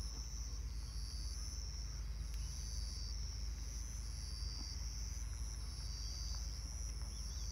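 Insects trilling steadily, a shrill high note that keeps switching back and forth between two pitches, over a low steady rumble.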